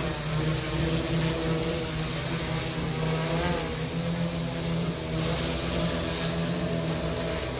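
Large multi-rotor agricultural spraying drone flying low, its propellers giving a steady droning hum of several stacked tones, with the pitch wavering slightly as it manoeuvres.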